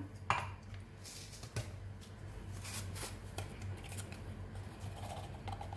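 Ghee melting in a hot nonstick frying pan, crackling faintly, with a few light ticks over a steady low hum.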